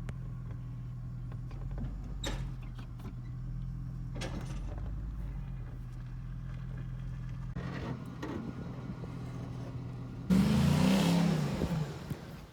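Hemi engine idling steadily. About ten seconds in it gives way to a louder rushing sound with a wavering low tone that lasts about two seconds, then fades.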